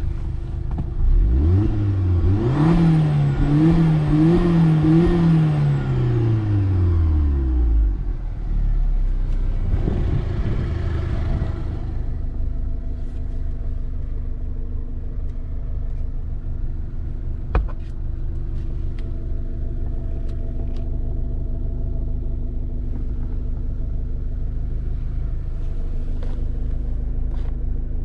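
Alfa Romeo Giulietta's 1.75 TBi turbocharged four-cylinder petrol engine revved while stationary. It climbs about a second in, blips three times near the top, falls back, and settles into a steady idle. A single sharp click comes about two-thirds of the way through.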